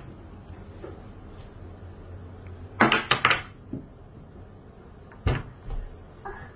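Jumbo game dice rolled onto a table: a quick run of knocks as they tumble about three seconds in, then one more sharp knock a couple of seconds later.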